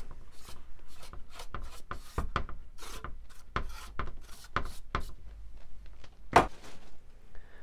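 Bristle brush sweeping dust off a balsa-wood wing frame: a run of short, irregular brushing strokes over the wood, with one sharper knock a little over six seconds in.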